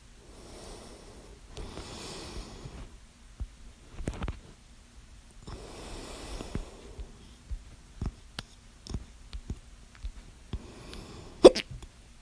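A person breathing heavily with hiccups: long, soft breaths broken by short, sharp hiccup catches, the loudest just before the end.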